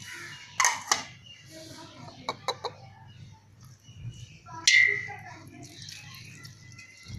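Light clicks and taps of metal kitchenware against a steel plate while spice is sprinkled over fish. About two-thirds through comes one louder clink, and its high tone rings on for a couple of seconds.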